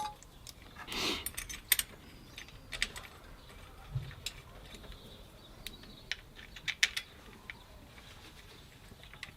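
Scattered metallic clicks and clinks of hand tools and small parts being handled during engine reassembly, with a short scraping noise about a second in.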